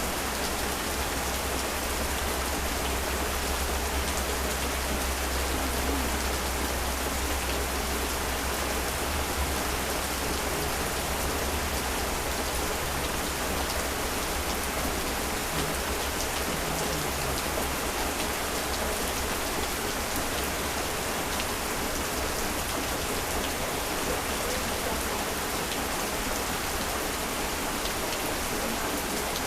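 Heavy rain falling steadily. A deep low rumble underneath fades out about twelve seconds in.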